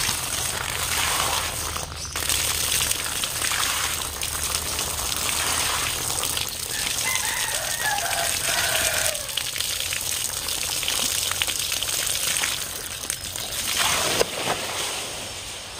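Water and seed paddy soaked overnight pouring out of a tipped blue plastic drum onto a tarp: a steady rushing gush. A rooster crows about seven seconds in.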